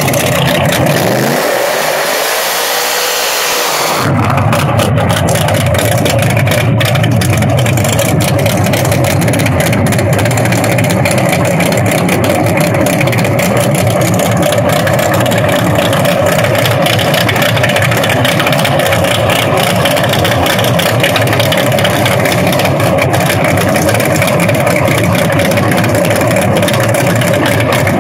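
Loud drag-race car engines running steadily at the starting line. A bright hiss over the engines in the first four seconds stops abruptly about four seconds in.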